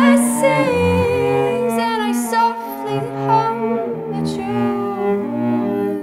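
A cello playing slow, held bowed notes, with a woman's singing voice holding a note at the start.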